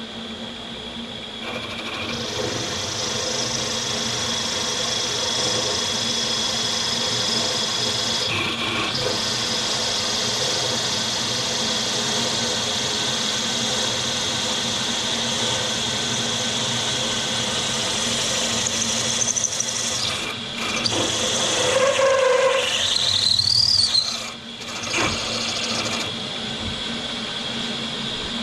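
HBM 45 Profi milling machine running on its rebuilt belt drive with new bearings, giving a steady machine whine. About twenty seconds in it grows louder and a high pitch rises, then falls away sharply a few seconds later.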